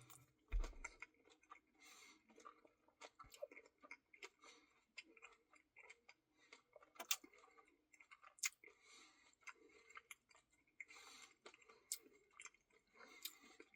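Faint close-miked chewing and mouth smacking while eating a Reese's cookie dough Blizzard, with scattered soft clicks. The loudest ones come about half a second in, about seven seconds in, and eight and a half seconds in.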